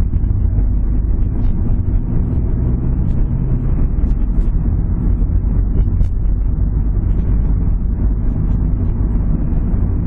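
Car being driven: steady low engine and road rumble.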